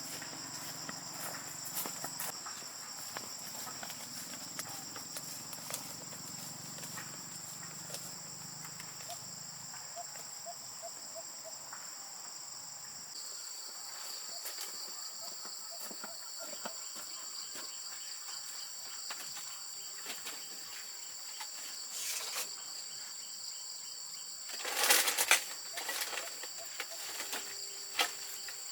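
Insects chirring steadily at two high pitches, a second chorus joining about halfway, with scattered clicks and a short cluster of louder knocks near the end.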